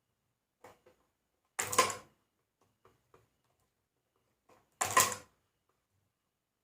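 Two spot-weld zaps from a homemade transformer spot welder welding nickel strip onto lithium-ion battery cells, each a sharp crackling burst of about half a second, roughly three seconds apart, with a few faint clicks between.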